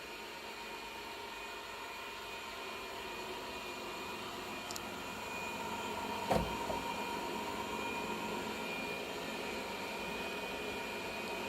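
Ecovacs Deebot R98 robot vacuum running with a steady high-pitched squeak over its motor noise, growing slightly louder. A single knock about six seconds in.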